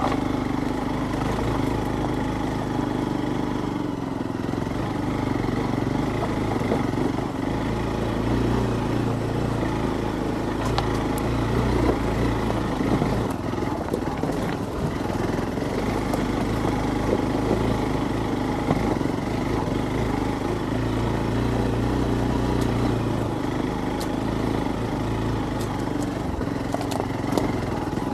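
Hero Xpulse 200's single-cylinder 200 cc engine running steadily as the motorcycle is ridden over a rocky dirt track, its pitch rising and falling a little, with a few sharp knocks.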